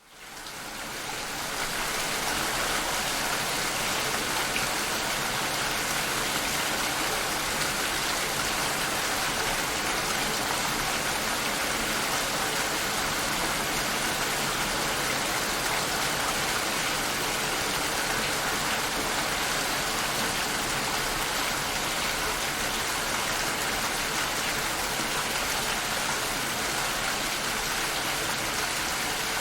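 Steady rainfall: a dense, even hiss of rain with no single drops standing out, fading in over the first couple of seconds.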